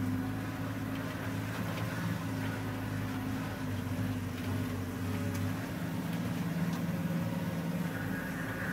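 Open safari game-drive vehicle's engine running steadily with a low hum as the vehicle drives slowly along a dirt track.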